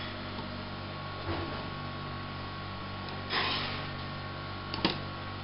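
Steady electrical mains hum. Over it, a table knife spreading sour cream on a crepe gives a short scrape about three seconds in and a sharp click against the plate near the end.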